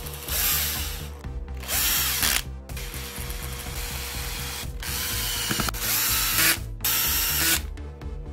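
Makita cordless drill-driver running in about five short bursts as it drives screws into a plastic drill housing, closing it up after repair, with background music underneath.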